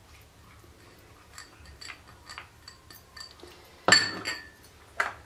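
Kitchen dishes clinking as chopped vegetables are tipped from small bowls into a mixing bowl of mashed potato: a few faint taps, then a sharp ringing clink about four seconds in and a shorter one a second later.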